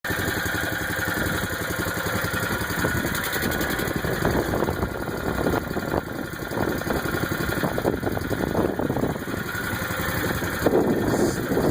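An engine running steadily at idle, with a fast, even pulsing and a little louder near the end.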